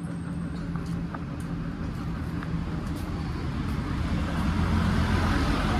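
Road traffic: a vehicle engine running with a steady low hum, getting louder near the end.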